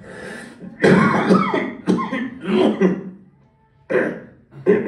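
A man coughing hard, several rough coughs in a row with a short break before the last two. The coughing fit is staged for an old-man ventriloquist puppet.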